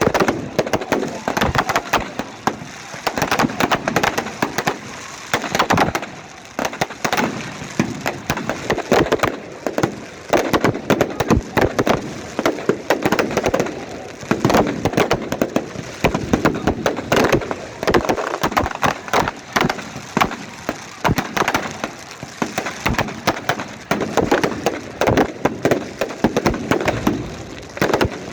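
A huge wood bonfire burning, with dense, irregular crackling and popping of the burning wood over a swelling rush of flame.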